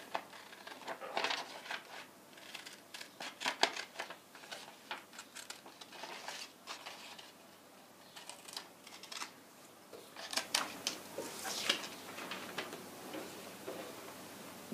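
Scissors cutting through paper: a run of short, irregular snips in clusters with brief pauses between.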